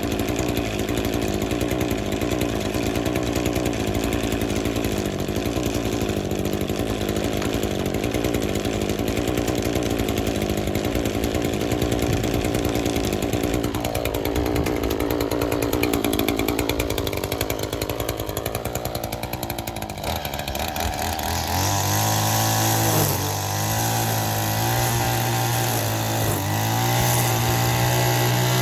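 Echo two-stroke petrol strimmer running, its engine note rising and falling as it cuts. About twenty seconds in the sound changes abruptly to a steadier, stronger engine note.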